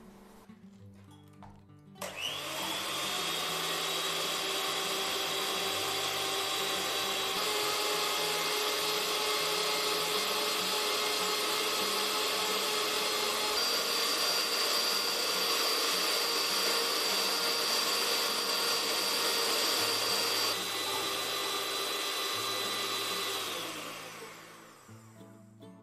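Electric hand mixer whisking grape molasses in a glass: the motor spins up about two seconds in and runs with a steady whine. The whine steps up in pitch about midway and back down later, then winds down and stops near the end.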